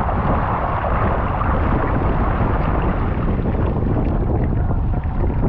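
Wind buffeting a camera microphone mounted on a Moth sailing dinghy, with water rushing and spraying past the hull as the boat sails fast. It is a steady, loud rush with a heavy low rumble.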